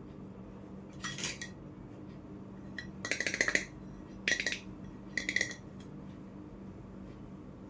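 Miniature toy cookware and utensils clinking as they are handled and tapped: four short bursts of quick, light clinks with a slight ring, the loudest about halfway through.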